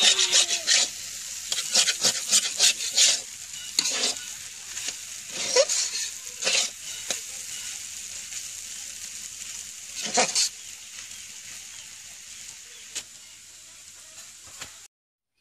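Noodles and egg sizzling in oil in a metal wok while a metal spatula stirs and scrapes them. The spatula clinks often against the pan, less often as it goes on. The sound stops abruptly shortly before the end.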